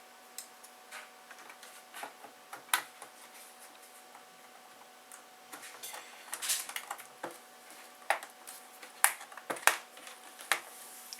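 Scattered sharp clicks and taps of hard plastic parts being handled and fitted together, as the black plastic bezel of a 1999 Honda Civic instrument cluster is put back on.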